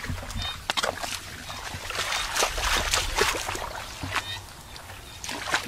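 Hands digging and scooping in wet mud at a crab burrow: a run of irregular squelches and wet slaps, thickest in the middle.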